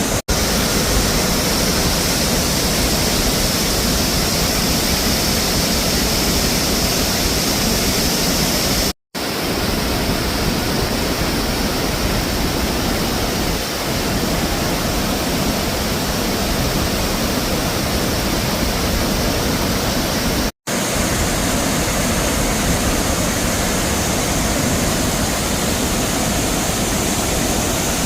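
Waterfall in spate after heavy rain, a loud steady rush of falling water. The sound drops out for an instant about nine and twenty seconds in.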